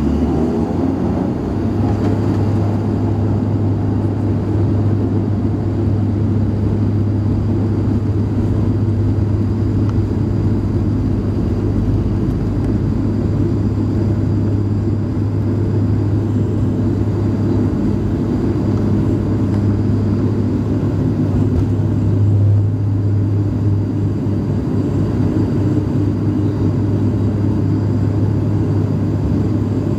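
Cabin noise of a Dash 8 Q400 turboprop at high power during takeoff and climb: a deep, steady propeller hum over a dense engine rumble. The hum sets in about a second and a half in.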